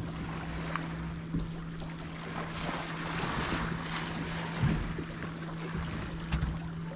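Wind buffeting the microphone and water slopping around a small fishing boat at sea, over a steady low hum, with a few soft knocks.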